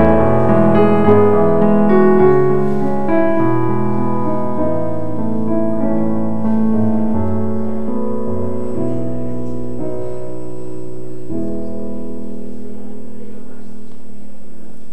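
Piano music: slow chords played one after another, with the last one struck about eleven seconds in and left to ring.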